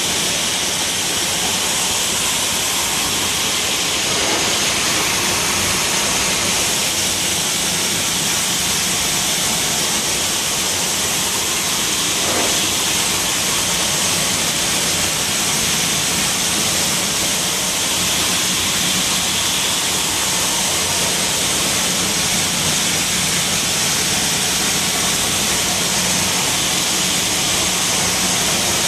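High-pressure water spray hissing steadily against the finned tubes of a fin fan cooler during cleaning, over a faint steady machine hum.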